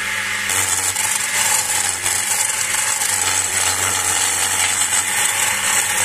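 Skew chisel making a planing cut along a long, thin walking-stick spindle spinning on a wood lathe, the turner's hand bracing the work. The cut sets in as a steady high hiss about half a second in, over the lathe's low hum.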